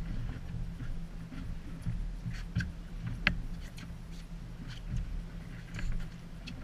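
Fishing boat's engine running steadily with a low hum, with scattered clicks and knocks on board, the sharpest about three seconds in.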